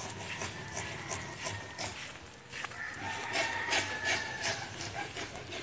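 A rooster crowing faintly, one long drawn-out crow starting about three seconds in, over soft rustling.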